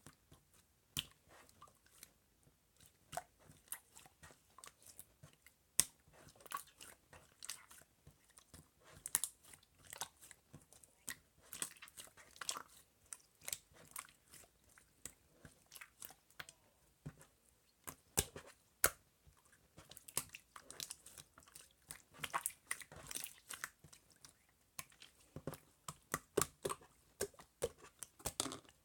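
Slime being squeezed, stretched and poked by hand, giving a continuous run of irregular sticky clicks and small crackly pops.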